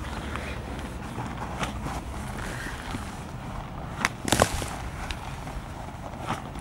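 Snow crunching as a person scoops and packs snow by hand and shifts his feet, with scattered short crunches and a louder cluster of sharp knocks about four seconds in.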